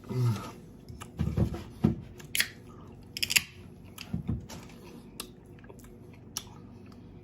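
Close-miked eating: mouth sounds of chewing and biting, with a few crisp crackles and a short low hum at the start.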